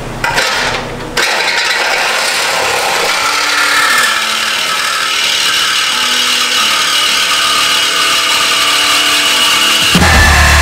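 Corded DeWalt reciprocating saw cutting through a car's front bumper reinforcement, a steady loud buzzing cut that starts about a second in. Loud music with heavy bass cuts in near the end.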